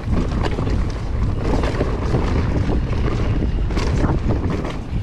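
Wind buffeting the microphone of a bike-mounted camera as a Vitus Sommet full-suspension mountain bike rolls fast down a dirt trail, with many small rattles and knocks from the bike and its tyres over the ground.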